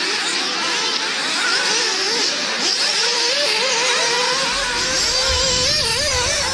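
Several nitro-powered off-road RC buggies' glow engines racing, their high-pitched whine rising and falling quickly as they rev up and back off around the track. A low beat of music comes in under them over the last couple of seconds.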